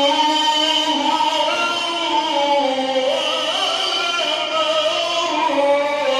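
A man chanting Quran recitation in the melodic mujawwad style, holding one long, unbroken phrase whose pitch slides and wavers in ornaments.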